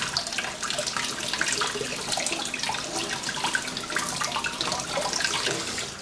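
Cold water running from a kitchen tap into a sink, splashing irregularly as something is handled under the stream.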